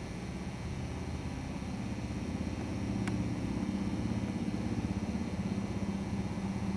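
Twin radial engines of a Lockheed Lodestar droning as the plane approaches low with gear down, growing louder about three seconds in.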